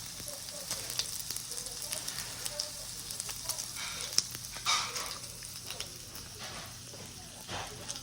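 Gopchang (grilled intestines) sizzling and crackling in a hot pan: a steady frying hiss with many small pops.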